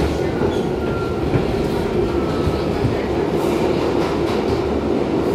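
Running noise inside an R62 New York City subway car moving through a tunnel: a steady rumble of wheels and traction motors, with a few light knocks from the wheels on the track.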